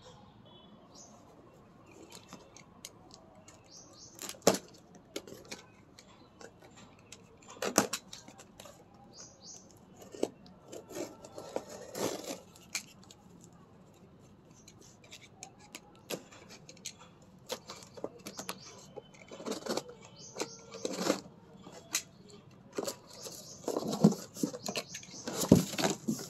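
Unboxing handling noise: irregular sharp snaps and clicks as plastic packing straps and tape are cut with a utility knife, with cardboard flaps and packing rustling and crackling. The two loudest snaps come about 4 and 8 seconds in.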